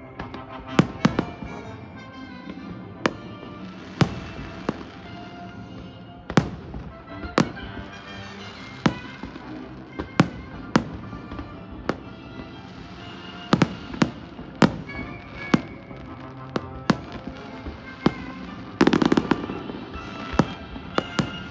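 Fireworks exploding in sharp, separate bangs about once a second, with music playing throughout. About nineteen seconds in comes a dense run of rapid bangs.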